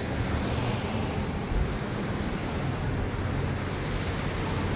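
Steady outdoor street noise, a low traffic rumble with no distinct events.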